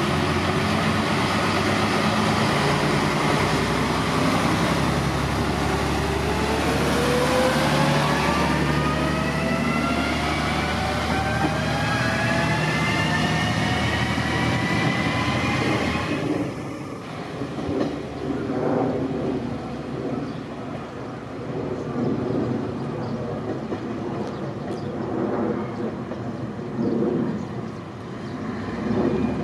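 Amagi Railway AR300-series diesel railcar pulling away: the engine running steadily, then its whine rising steadily in pitch as it accelerates, cutting off suddenly about sixteen seconds in. After that a quieter rumble with scattered clicks, the wheels crossing rail joints as the railcar draws away.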